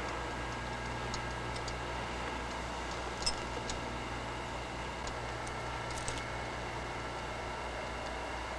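Steady low hum and hiss with a few faint light clicks, the clearest a little over three seconds in.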